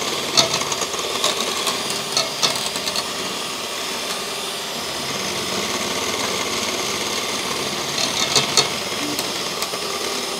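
Electric hand mixer running steadily, its beaters whipping cream with gelling sugar in a stainless steel pot toward stiff peaks. A few sharp clicks come through near the start and again about eight seconds in.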